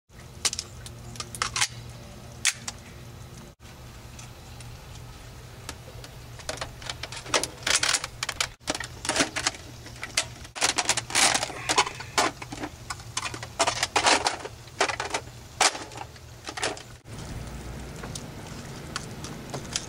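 Plastic toy guns being handled, with a run of irregular clicks and rattles, thickest in the middle, over a steady low hum.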